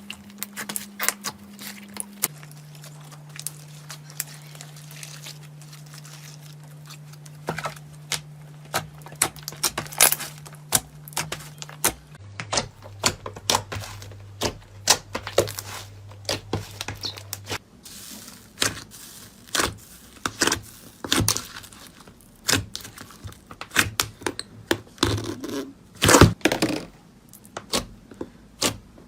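Slime being squeezed, poked and stretched by hand, giving a dense run of small clicks, pops and crackles. A faint low hum under it drops in pitch twice, then fades out about two-thirds of the way through.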